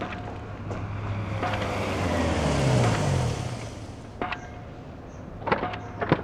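A motor vehicle passing by, its sound swelling and fading over a few seconds with the engine note falling in pitch as it goes past. A few sharp knocks follow near the end.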